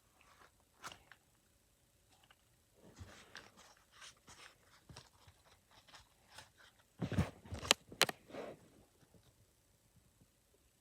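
Scattered crinkling and clicking from objects being handled, with a louder cluster of rustles and knocks about seven to eight seconds in.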